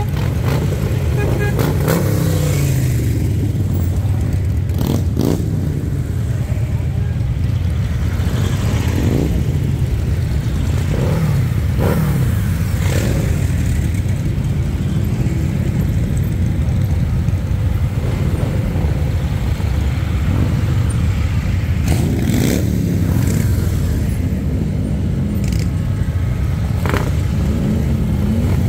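Harley-Davidson V-twin motorcycle engines rumbling in a group ride, revved up and down several times, with a few short sharp cracks.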